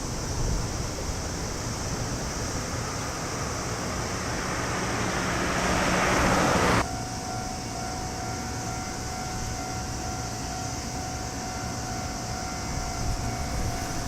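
A train's running noise builds as it approaches the level crossing and breaks off abruptly about seven seconds in. After the break, a level-crossing warning alarm rings steadily over wind noise.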